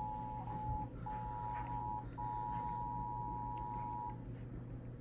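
Emergency Alert System two-tone attention signal: a steady dual-pitch electronic tone that breaks off briefly twice and stops about four seconds in, over a faint low hum.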